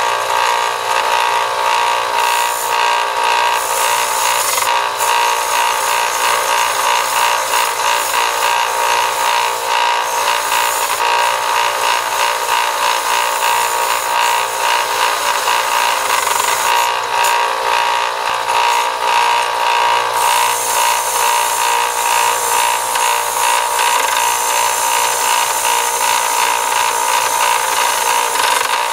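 Small bench belt sander running steadily while the steel jaws of lineman's pliers are ground against its belt, taking down weld added to repair blown-out cutting edges. The grinding hiss swells and fades as the pliers are pressed on and eased off.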